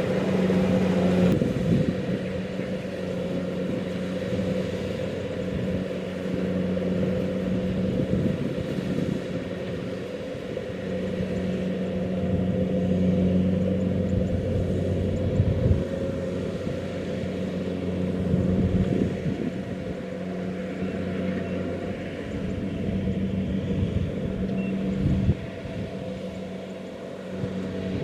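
Kubota DC-70 Plus rice combine harvester running steadily under load, its engine holding a constant pitch with slight swells and a few short knocks.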